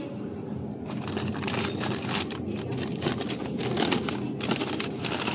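Plastic packaging of a bag of frozen chicken wings crinkling as it is grabbed and handled, a dense run of irregular crackles starting about a second in.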